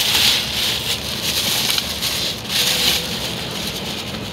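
Plastic sheeting rustling and crinkling as protective plastic is pulled off car seats, loudest in two bursts, at the start and about two and a half seconds in.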